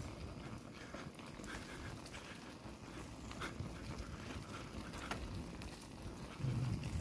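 Wind rumbling on the microphone during a bicycle ride, with scattered light clicks and rattles; the rumble grows louder near the end.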